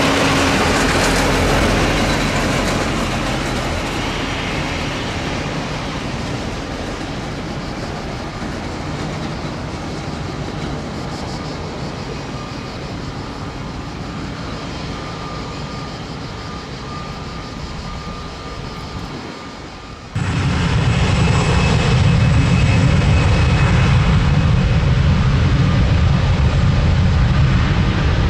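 Jet engines of an Airbus A321-211 freighter (CFM56 turbofans) running as the aircraft rolls past, with a faint steady whine, slowly fading. About two-thirds of the way in the sound turns abruptly much louder, into a deep steady jet rumble as the aircraft, pointed down the runway, powers up for takeoff.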